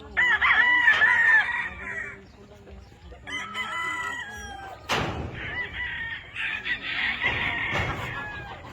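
Roosters crowing, three long crows one after another, the first the loudest, with a sharp click about halfway through.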